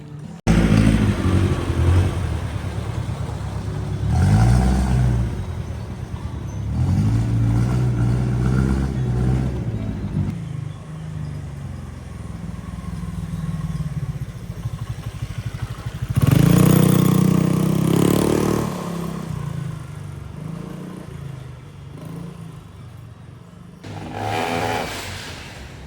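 Road traffic: several vehicle engines, motorcycles among them, passing and revving, each swelling and fading away, over a steady traffic rumble.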